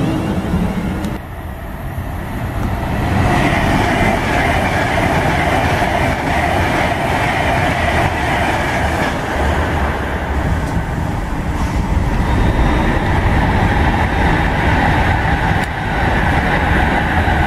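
Virgin Class 390 Pendolino electric trains running past: a steady, loud rumble of wheels on rail. The sound dips briefly about a second in and again near the end.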